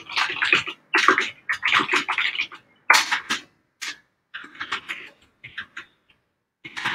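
Computer keyboard being typed on in quick runs of key clicks, with short pauses between words.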